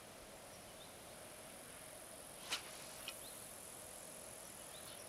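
Quiet outdoor ambience with a steady high-pitched insect trill, a few faint short chirps, and one sharp click about two and a half seconds in, with a smaller click just after.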